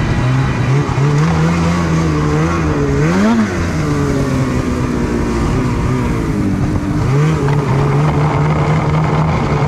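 Snowmobile engine running under throttle, with one quick rev up and back down about three seconds in, over a steady rushing noise.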